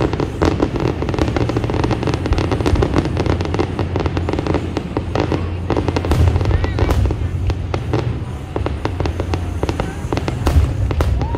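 Aerial fireworks going off: a rapid, dense crackling of many small bursts over a continuous low rumble of booms, with a couple of short whistling glides.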